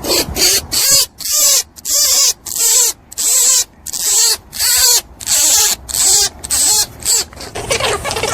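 A small animal squealing in a rapid run of about a dozen short, shrill squeaks, roughly two a second, stopping shortly before the end.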